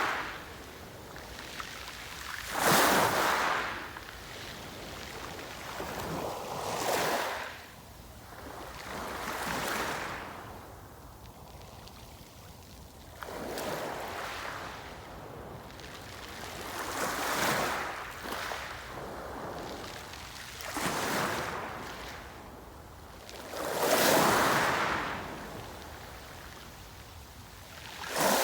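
Sea waves breaking and washing onto the shore, each surge swelling and falling back about every three to four seconds, the strongest ones about three seconds in, near twenty-four seconds and at the very end.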